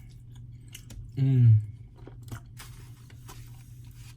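A person chewing a mouthful of lasagna roll-up, with small wet mouth clicks and smacks, and a brief hummed "mm" falling in pitch about a second in.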